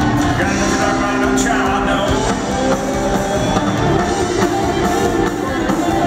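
A live rock band playing, with electric guitars and drums, recorded from among the audience.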